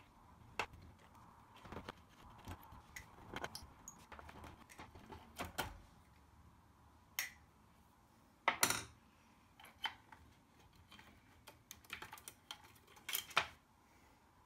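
Scattered small clicks and rattles of a screwdriver and screws as the Juno-106's voice circuit board is unscrewed and lifted out. A louder clatter comes about eight and a half seconds in and another near the end.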